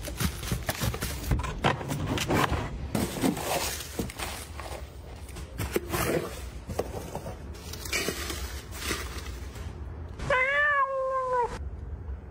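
A cat gives one drawn-out meow near the end that rises and then falls in pitch, the loudest sound here. Before it comes a string of small clicks, taps and rustles of household objects being handled.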